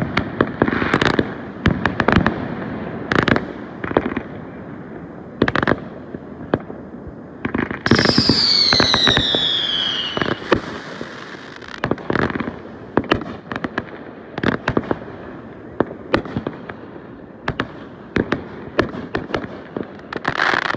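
Fireworks going off: repeated sharp bangs and crackling bursts. About eight seconds in, a whistling firework gives a whistle that falls in pitch over a couple of seconds.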